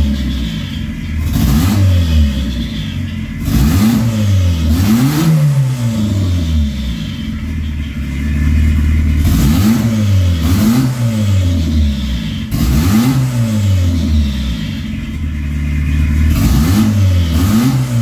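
Ford Escort's freshly rebuilt turbocharged four-cylinder engine on its first run, revved in repeated throttle blips that climb to about 3,000–4,000 rpm and fall back. It is revving with no load, and the turbo makes no boost.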